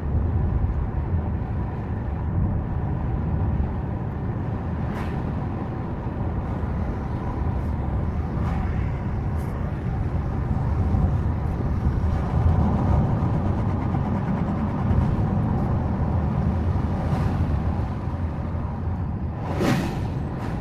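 Subaru Forester driving, heard from inside the cabin: a steady low rumble of road and engine noise, with a brief louder hiss about a second before the end.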